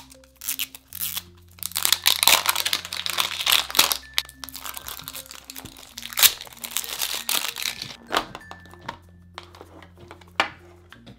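Plastic wrap crinkling and tearing as it is peeled off a plastic toy capsule ball, in two long crackly stretches with a pause between them, then softer handling clicks as the ball is opened. Background music plays under it.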